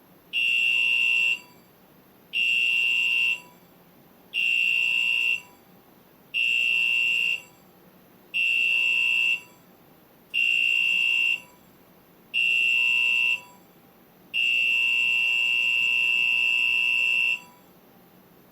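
Cruise ship's general emergency alarm sounded over the cabin speaker as an announced test: seven short blasts of a high, buzzing electronic tone, then one long blast of about three seconds, the international signal to go to the assembly stations.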